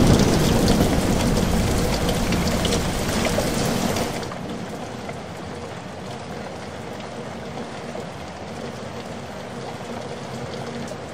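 Steady sound of falling water, heavy for about the first four seconds, then dropping to a lighter, even hiss.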